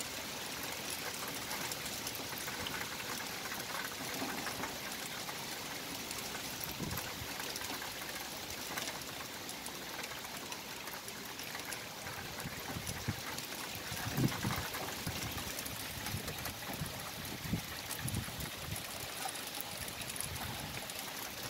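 Thunderstorm rain falling steadily, with a little hail still mixed in. A few low thumps break in, the loudest about fourteen seconds in.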